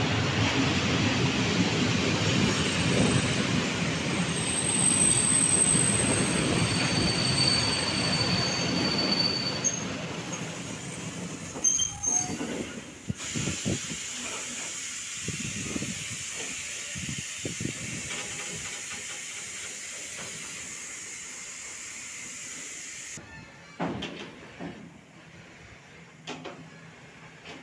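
A freight train of tank wagons rolling past at close range, its wheels rumbling loudly, with brief high-pitched wheel squeals about five to nine seconds in. The wagons' wheels then clack over rail joints in uneven knocks as the train draws away and the sound fades.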